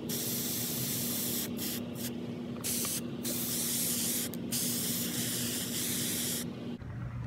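Aerosol spray paint can spraying in long hisses, broken by a few brief pauses as the nozzle is released, and stopping about six and a half seconds in.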